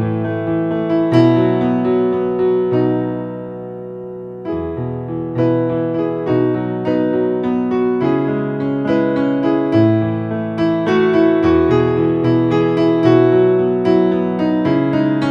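Solo piano playing a melody in a minor key over held low chords. About three seconds in, a chord is left to ring and fade before the playing picks up again.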